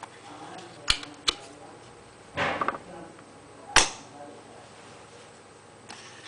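Handheld spring-loaded desoldering pump being cocked and fired: two sharp clicks about a second in, a short rasping rush near the middle as the plunger is worked, then the loudest snap as the spring-loaded plunger is released.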